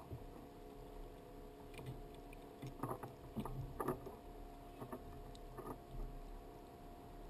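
Plastic sea kayak being paddled: irregular knocks and splashes as the paddle strikes the water and bumps the hull, over a steady low hum.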